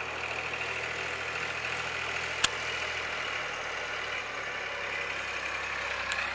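Small farm tractor's engine running steadily under light load as it pulls a drag across the dirt of a riding arena.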